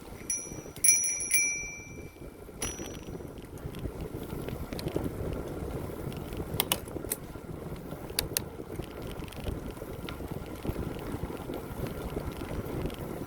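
Bicycle bell rung about three times in quick succession right at the start, with one fainter ring a moment later: a warning to oncoming riders at a blind corner. After that comes the steady tyre and wind noise of the moving bicycle, with a few sharp clicks about two-thirds of the way through.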